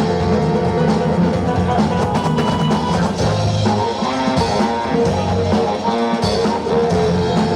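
Loud music with guitar and a steady drum beat, played for the dancers.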